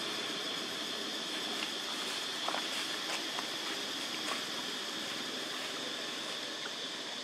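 Steady outdoor background hiss with a constant high whine, and a few faint clicks about halfway through.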